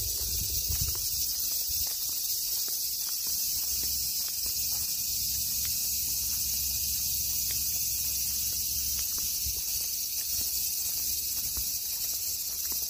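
Dense, steady high-pitched chorus of insects, with soft footsteps and a low rumble of wind or handling on the microphone beneath it.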